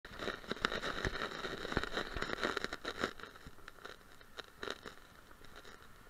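Surf breaking and washing up a sandy beach: a crackling, fizzing wash with many sharp little clicks, louder for the first three seconds and then dying down.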